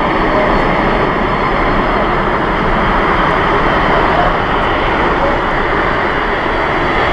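Boeing 747-400 freighter's four jet engines running as the aircraft rolls past on the ground: a loud, steady rush of engine noise.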